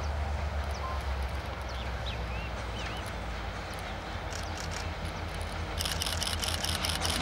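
Low, steady rumble of a G22 diesel freight locomotive's engine, easing off a little midway and building again near the end. Birds chirp a few times in the first half, and a fast, high-pitched ticking starts in the second half.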